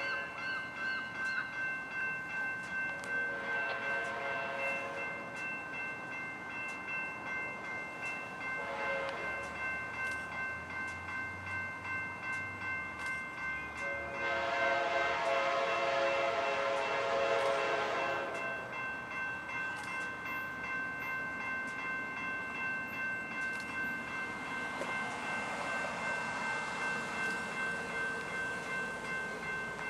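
Grade-crossing bell ringing steadily while the lead EMD F59PHI locomotive sounds its Nathan K5LA five-chime horn in three blasts, the last a long one of about four seconds. Near the end the approaching train's rumble grows.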